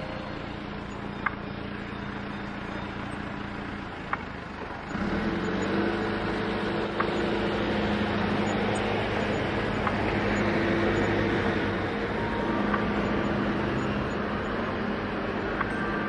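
A vehicle engine running steadily under a hiss of noise; the hum steps up louder about five seconds in.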